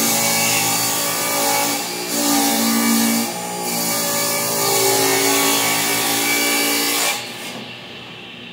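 Table saw ripping a board lengthwise into a narrow strip. The blade runs loud under load, with two brief dips in the first few seconds, then drops sharply to a much quieter hum about seven seconds in as the cut ends.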